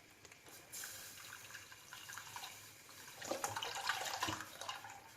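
Milk being poured into a pan of butter-and-flour roux, a faint liquid pouring sound, with a few light knocks against the pan in the second half.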